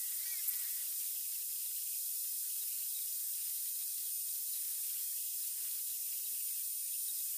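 A steady high-pitched hiss with a few faint thin whines in it, unchanging throughout.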